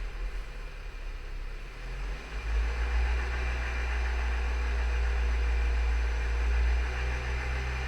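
Skoda Yeti's 1.2 TSI (CBZB) four-cylinder petrol engine running with a low, steady hum that evens out after about two and a half seconds, faint steady tones above it. This is the abnormal engine noise the owner is recording.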